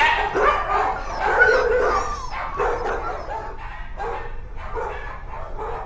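A dog barking and yipping in quick succession: many short, high calls, loudest in the first two seconds.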